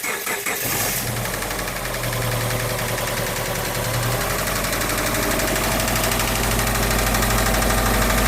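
Subaru 2.5-litre flat-four engine cranking and catching in the first second, then running steadily with the knocking noise this engine has developed.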